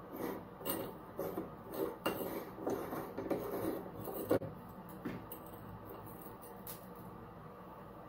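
Corroded chrome sleeve of an old Delta 600 series shower valve being unscrewed by hand and slid off the brass bonnet: metal rubbing and scraping on the threads with light clinks, and a sharp click about four seconds in. It goes quieter for the last few seconds.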